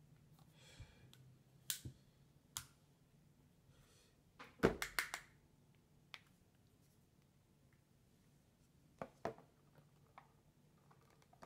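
Small plastic clicks and taps from handling the Apeman A79 action camera while working its battery compartment: scattered single clicks, with a quick cluster of several clicks about halfway through.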